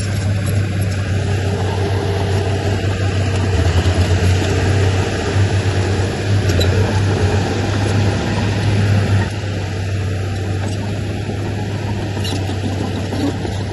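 Heavy earthmoving machinery's diesel engine running steadily with a deep drone. It gets louder, as if under load, from about three and a half seconds in, then eases back a little after about nine seconds.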